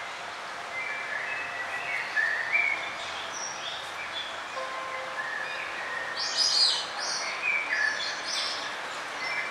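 Birds chirping and calling in many short notes over a steady background hiss, busiest and loudest about six to seven seconds in.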